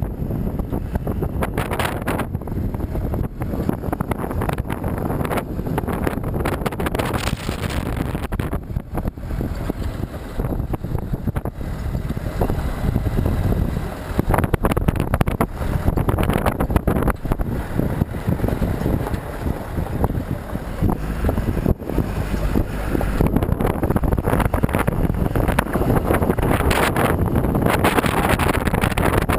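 Wind buffeting the microphone of a camera mounted outside a Jeep Wrangler JK diesel as it drives a rough desert track, with the engine and tyres running underneath in a steady noise.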